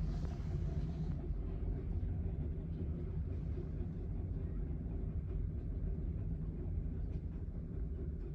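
An RJ Corman freight train rolling past, a steady low rumble; a lighter hiss above it dies down about a second in.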